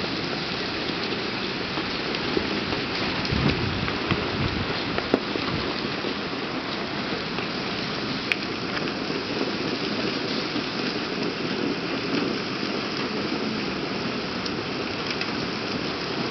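Heavy rain falling steadily on paving and parked cars in a thunderstorm, with a brief low rumble of thunder about four seconds in.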